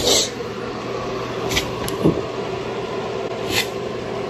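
Steady hum of a ceiling fan running in a small bedroom, with three short soft knocks about a second and a half, two seconds and three and a half seconds in.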